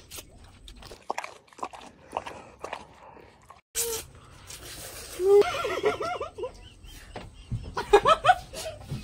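People slurping and chewing instant noodles straight off their plates without hands, with many short wet smacks and clicks. Bursts of high-pitched, whinny-like laughter come about halfway through and again near the end.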